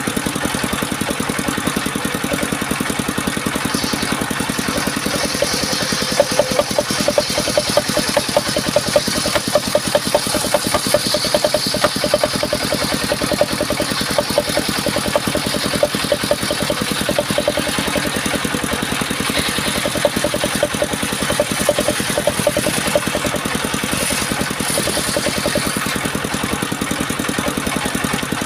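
Engine-driven sawmill running steadily with a fine, even pulse. From about four seconds in to about twenty seconds in, a higher hiss of the saw cutting through waru wood rides over it and the sound grows a little louder.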